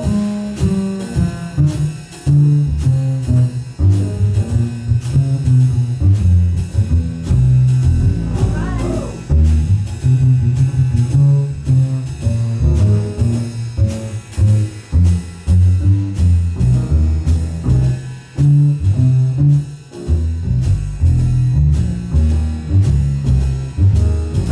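Live jazz band playing a slow blues instrumental passage, the upright bass out front playing a line of stepping notes over a steady cymbal beat from the drum kit, with lighter guitar or piano notes above.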